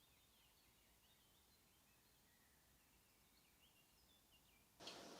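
Near silence with faint bird chirps over a low hiss, then music starts suddenly near the end.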